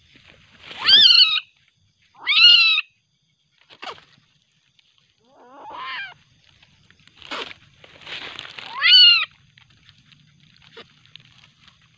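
Young Asian palm civet calling in a series of separate cries, each rising then falling in pitch. The loudest come about a second in, at about two and a half seconds and near nine seconds. These are the cries of an angry, aggressive animal.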